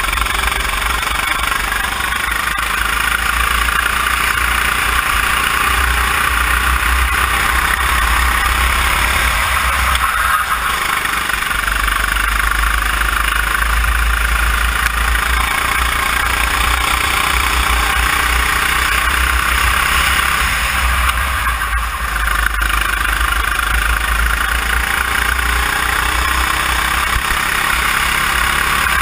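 Sodi RT8 kart's four-stroke engine running hard on track, its pitch rising along the straights and falling briefly about ten seconds in and again near twenty-two seconds as the kart slows for corners.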